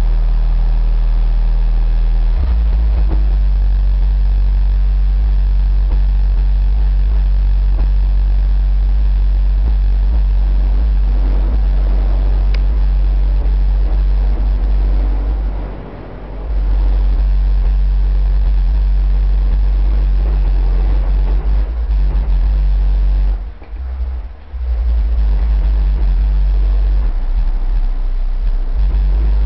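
Two 8-inch subwoofers playing a bass-heavy track at high volume: deep, sustained sub-bass notes that break off briefly about halfway through and again for a moment near the end.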